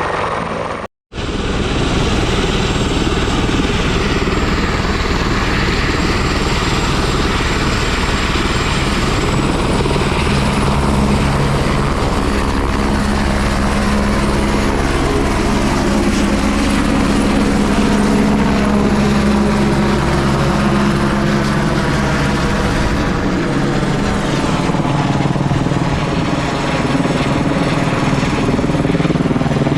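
Helicopter running steadily and loud, its rotor and engine sound continuous, with a brief break about a second in.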